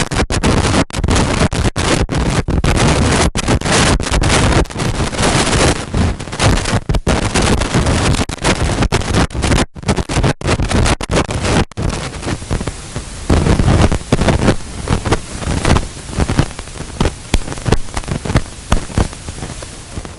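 Loud wind noise on the microphone: a rough rushing noise strongest in the low end. In the first half it is cut by many brief dropouts, and from about halfway it comes in uneven gusts.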